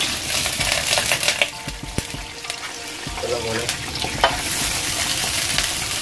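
Butter sizzling as it melts in a hot wok, with a spatula scraping and tapping against the pan as it pushes the butter around. The sizzle starts suddenly and swells again near the end.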